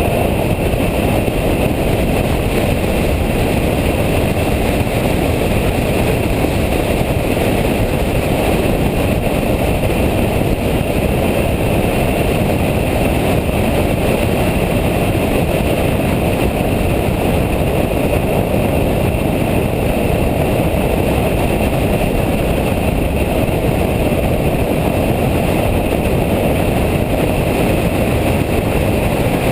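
Steady loud rush of engine, tyre and wind noise from a Nissan Nismo car at speed on a race track, heard from inside the car.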